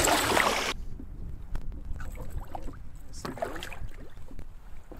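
Water splashing hard at the side of a canoe as a hooked lake trout thrashes at the net, cut off sharply about a second in. After that, wind rumbles on the microphone, with scattered light knocks and clicks of the net and gear being handled in the canoe.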